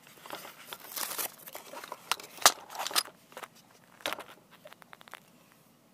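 Camera handling noise as the camera is repositioned: irregular knocks, taps and rustling close to the microphone, the sharpest knocks about two and a half and three seconds in, thinning out near the end.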